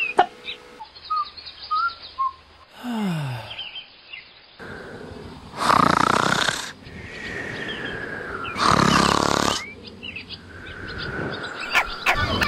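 Two loud snores about three seconds apart, a cartoon snoring sound effect for a sleeping character, with birds chirping before them.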